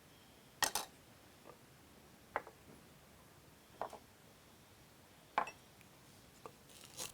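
Kitchen utensils being handled on a food-prep counter: about seven light knocks and clinks, irregularly spaced, with quiet between them.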